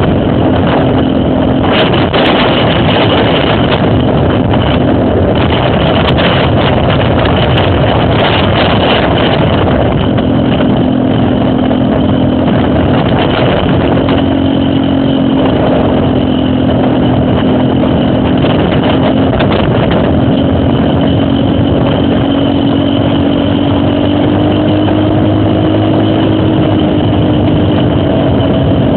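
Trail motorcycle engine running steadily, its pitch rising a little and falling back near the end, under a loud rushing noise.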